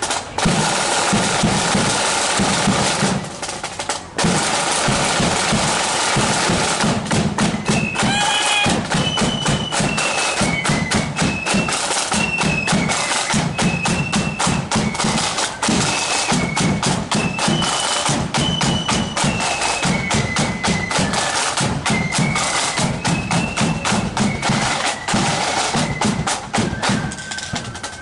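Marching flute band playing: side drums rattle and a bass drum beats a steady march, and about eight seconds in the flutes come in with a high melody over the drums.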